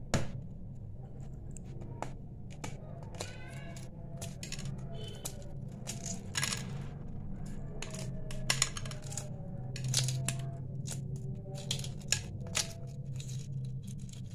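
Shell of a hard-boiled egg being cracked and peeled by hand: irregular small crackles and clicks, over a steady low hum.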